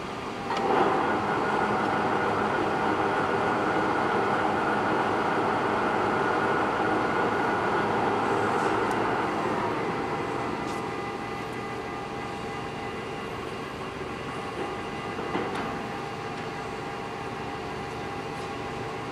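Large Poreba TR135B2 gap-bed lathe's headstock gearbox and spindle starting up and running steadily for about nine seconds, then winding down to a lower steady hum. A single knock comes about fifteen seconds in.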